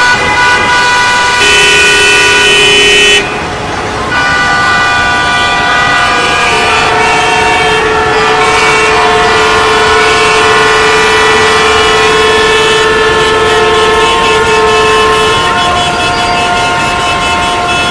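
Traffic noise made of several vehicle horns honking at once: overlapping steady horn notes at different pitches, held for seconds at a time. A louder horn blast comes from about one and a half to three seconds in.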